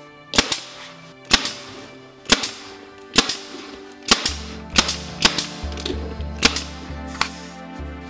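Nail gun firing nails into plywood: about nine sharp shots, roughly one a second at first, then coming quicker and less evenly. Background music with steady low notes runs underneath.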